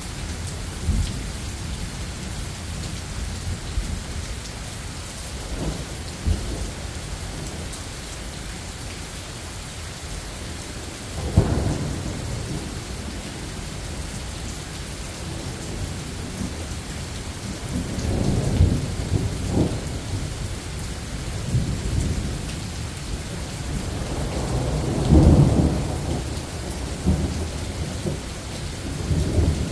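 Steady rain falling during a thunderstorm, with several low rumbles of thunder rolling through; the loudest comes about two-thirds of the way in.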